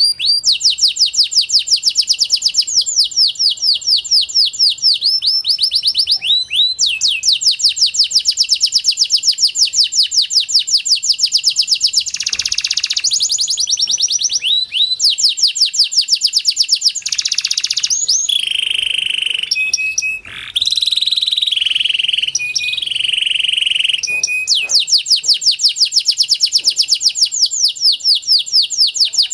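Pied domestic canary singing a long song, mostly runs of fast repeated high notes. Partway through come buzzier held phrases and a few short clear whistles before the quick trills resume.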